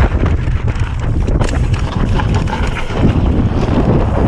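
Wind buffeting the microphone over a mountain bike rolling fast down a loose rocky trail, its tyres crunching and the bike rattling over stones in many short clicks.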